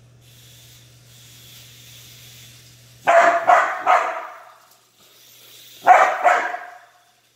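A young Aussiedoodle barking in play while chasing a toy RC car: three quick barks about three seconds in, then two more near the end, over a faint steady hum at the start.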